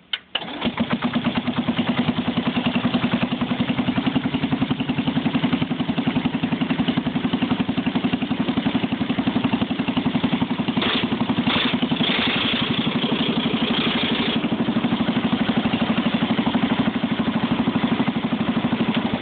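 1964 John Deere 110 lawn tractor's single-cylinder engine starting at once and running steadily with an even, rapid firing pulse; it is already warm, having been started earlier. The tone turns briefly harsher and brighter about eleven to fourteen seconds in.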